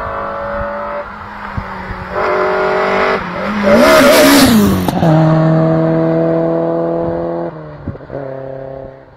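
BMW E30 M3's S14 four-cylinder engine, breathing through a carbon airbox and Supersprint exhaust, revved hard as the car drives past: the note comes in, cuts out briefly twice, is loudest with a rush of intake and exhaust noise as the car passes about four seconds in, then fades away.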